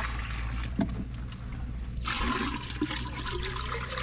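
Water poured in a steady stream from a black bucket into the mouths of clay water pots (matkas). The splashing changes abruptly about halfway through, as the stream moves to another pot.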